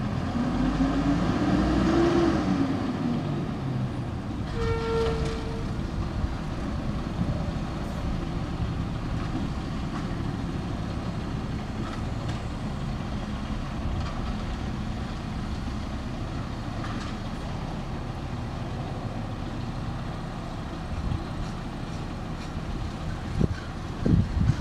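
Mack garbage truck's diesel engine running, revving up and falling back in the first few seconds, then running steadily. A short steady tone sounds about five seconds in, and a few sharp knocks come near the end.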